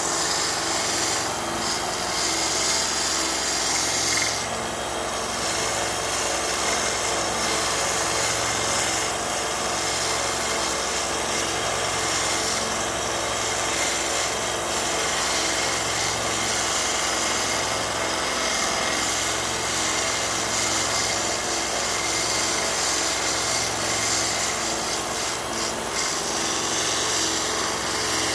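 Central Machinery 1x30-inch benchtop belt sander running steadily, its belt sanding a workpiece held with gentle pressure, giving a steady rasping over the motor's hum. The low hum swells and fades about every two seconds.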